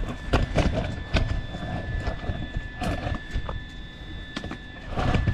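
Irregular knocks and clatter over a low rumble, with a faint steady high-pitched whine underneath.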